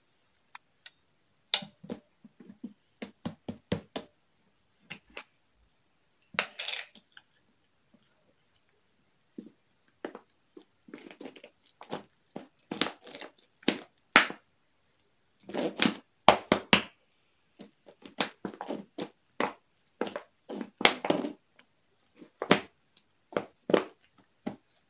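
Glitter slime being squeezed, stretched and kneaded by hand, making irregular sticky clicks, crackles and squelchy pops, with short quiet gaps between handfuls.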